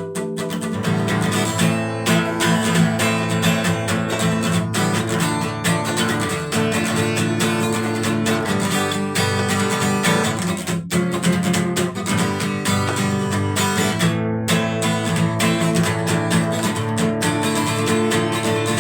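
Acoustic guitar playing a song, strummed chords mixed with picked notes, with no singing.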